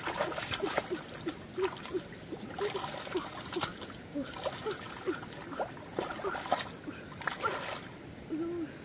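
Water splashing and sloshing in shallow puddle water, in a run of short irregular splashes such as hands or a net working through it to catch fish. Brief low chirp-like sounds are mixed in.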